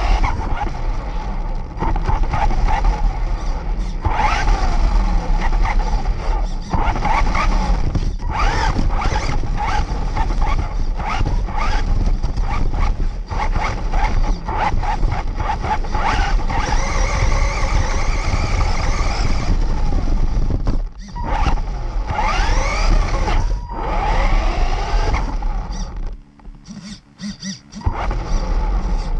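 Radio-controlled buggy driving, heard from on board: its motor whines up and down in pitch as the throttle changes, over rumble and scraping from the tyres on paving and grass. The sound drops away briefly about 26 seconds in, then picks up again.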